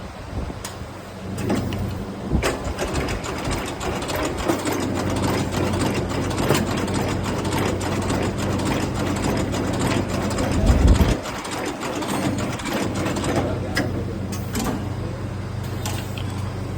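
Double-sided motor-winding lacing machine running: a steady electric hum under rapid, irregular clicking and rattling, with one heavy low thump about eleven seconds in.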